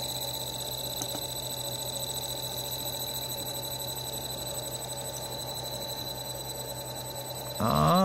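Cut-open refrigerator compressor, a small single-cylinder piston pump, turning slowly at about 8 Hz on a variable-frequency drive: a steady electric motor hum with a thin high whine, running with no oil and no valve reeds, near the speed where it stalls.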